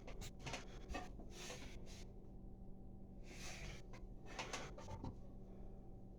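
Faint handling noises from the plastic flush valve parts in a toilet tank: scattered small clicks and taps, with two short rubbing or scraping noises, over a low steady hum.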